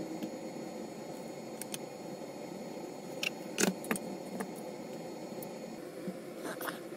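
A few light clicks and small metallic taps from handling wire and small tools at the workbench during soldering, the loudest a little past halfway, over a steady low hiss.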